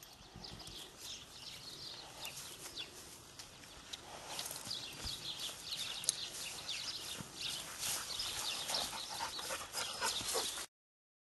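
A dog barking repeatedly, louder and more frequent from about four seconds in.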